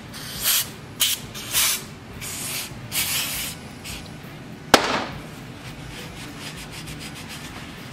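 Aerosol brake cleaner sprayed in several short hisses onto the stuck breaker points of a Suffolk Super Colt engine to clean them, then a single sharp knock as the spray can is set down on the bench, followed by faint rubbing as a rag wipes the points.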